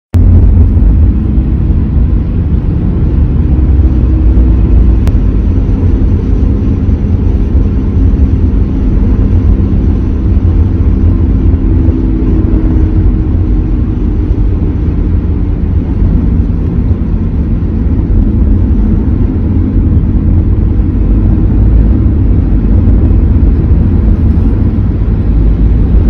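Steady low drone and road noise inside the cabin of a 2013 Subaru Forester driving at road speed, digitally amplified: the hum of a worn front wheel bearing before its replacement.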